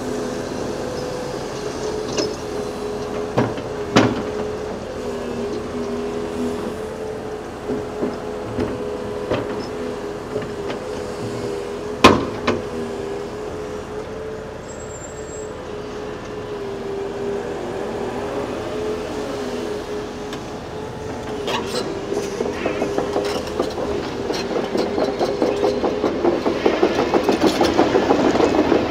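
Volvo EC380E crawler excavator's diesel engine and hydraulics running steadily, with a few sharp metal clanks, the loudest about twelve seconds in. From about two-thirds of the way through, its steel tracks set up a fast, even clatter that grows louder as the machine travels.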